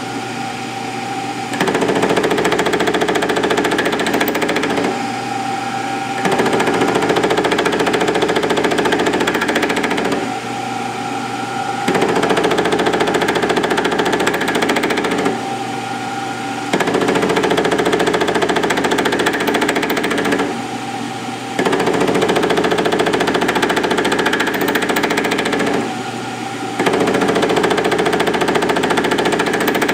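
Milling machine running with a boring head whose offset cutter is cutting a cam profile into half-inch steel drill rod: a steady motor hum under repeated stretches of cutting noise, each about four seconds long, with short lulls between, roughly one pass every five seconds.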